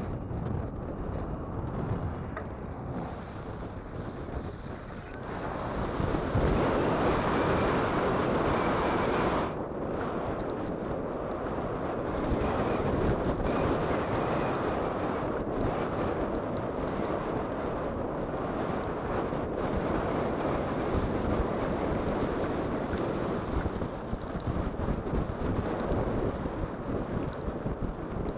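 Steady wind rushing over the microphone of a camera on a moving electric mobility scooter. The rush grows louder about six seconds in and drops off suddenly a few seconds later.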